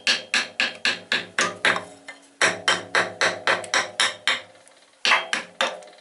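Hammer tapping a round wooden block, about four blows a second in three runs with short pauses, to drive the rope packing of the crankshaft seal down into its groove in a GAZ-53 engine block.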